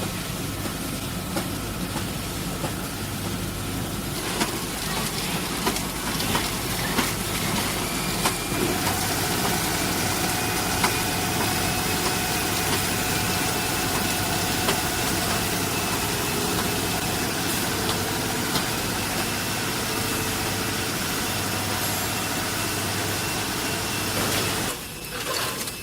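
Automatic potato chip packing machine with a multihead combination weigher running: a steady machine hum with scattered clicks and knocks. Higher steady whining tones join about eight seconds in.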